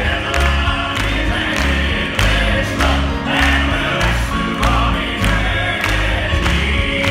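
Male gospel quartet singing a song in close harmony, accompanied by keyboard with heavy bass notes and a steady beat.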